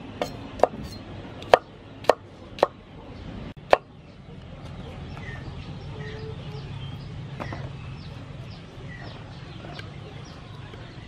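A cleaver chopping okra on a wooden cutting board: six sharp chops in the first four seconds, then no more chopping.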